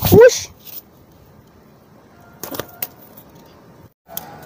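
A man's short shout of "wush" with a rising pitch, the handler's call bringing a racing pigeon in to land. After it there is only faint background noise with a few soft clicks.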